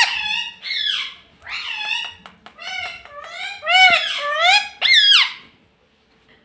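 Pet ring-necked parakeet calling in a quick string of loud, high-pitched calls, each rising and falling in pitch, stopping about five and a half seconds in.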